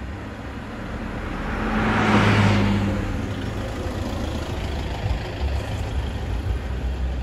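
Toyota Innova with a 2494 cc turbocharged diesel engine driving past: its sound grows to a peak about two seconds in, then fades away.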